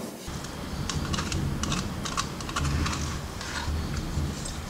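Rapid, irregular light clicks and taps, several a second, over a low rumble.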